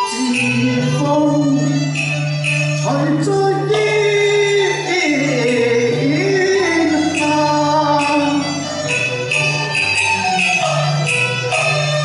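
A man singing a Cantonese opera duet song over a small live Chinese ensemble, with sustained low accompanying notes and a regular tapped beat; his sung line glides in pitch.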